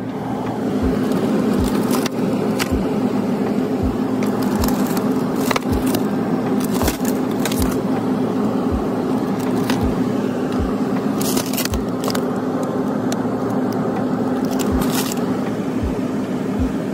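Steady hum of a glass-door supermarket freezer case, with a soft low thud about once a second, and clicks and crinkles as the freezer door is opened and a plastic food packet is handled.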